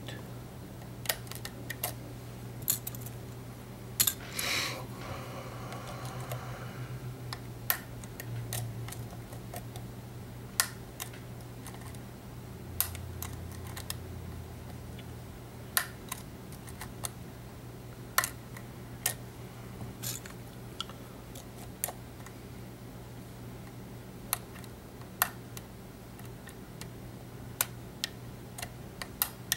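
Small metallic clicks and ticks of a lock pick and tension wrench working in an EVVA ALS euro cylinder during single-pin picking, coming irregularly about once a second, with a brief rustle about four seconds in. A steady low hum runs underneath.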